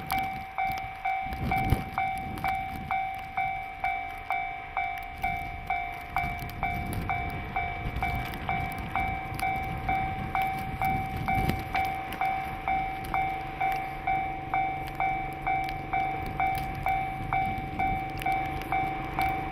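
Railway level-crossing warning bell ringing in an even electronic ding, about one and a half strikes a second. Underneath it runs the DD14 rotary snowplow locomotive's diesel engine. A steady drone from the engine rises into the sound about halfway through as the locomotive comes closer.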